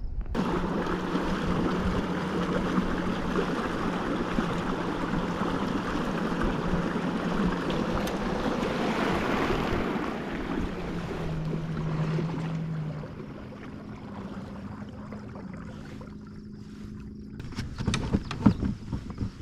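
Kayak moving under its electric motor: a steady hum over water rushing along the hull. About two thirds of the way through it eases off to a softer hum, and a few knocks come near the end.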